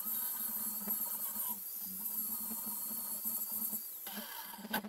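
Handheld angle grinder grinding the end of a steel railroad rail: a steady high-pitched whine with a grating hiss. About four seconds in the whine changes as the grinder comes off the steel.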